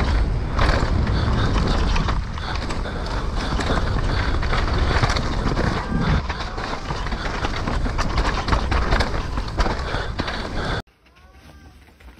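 Mountain bike descending a trail at race speed, heard through an action camera: continuous tyre and frame rattle with heavy wind buffeting on the microphone. It cuts off abruptly near the end to a much quieter scene with faint birdsong.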